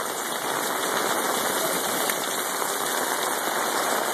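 Heavy rain falling steadily: an even, unbroken hiss of downpour.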